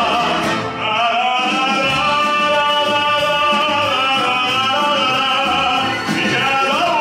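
Male baritone singing long, held notes without clear words into a handheld microphone over a full orchestral accompaniment in a bouncy twist song, with a rising slide in pitch near the end.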